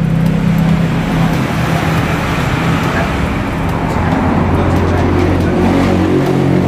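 Ford Ranger pickup's engine idling steadily with the hood open, its note shifting slightly about four seconds in.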